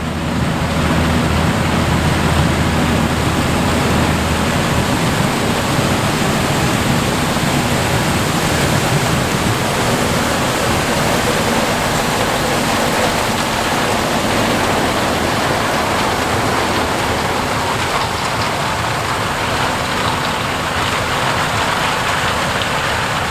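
Fendt Ideal 8 combine with its MAN 12.4-litre diesel engine working: a steady loud rushing noise of the machine, with a low engine drone that is strongest in the first few seconds and then sinks into the rush.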